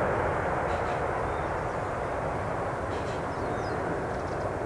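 Boeing 777-200 airliner's twin jet engines at takeoff power as it climbs out, a steady deep jet noise slowly fading as the aircraft draws away.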